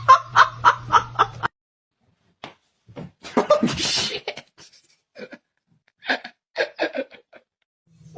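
A person laughing in quick, rhythmic bursts, cut off abruptly after about a second and a half. Scattered short sounds follow, then another short run of laughter-like bursts near the end.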